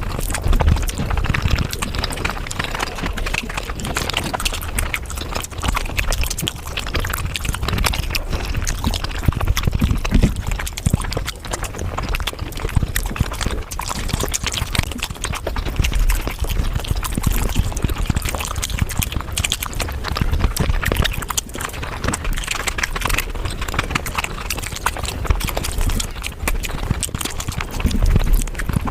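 Eating and chewing sounds of paneer butter masala sped up about five times, making a dense, rapid run of mouth clicks.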